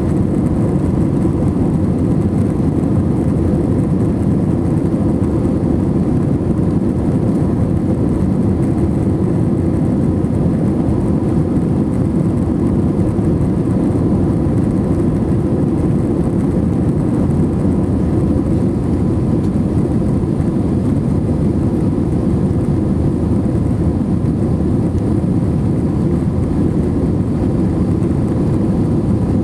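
Steady cabin noise aboard an Airbus A321-231: its IAE V2500 engines and rushing air make a low, even drone, with a faint high whine over it.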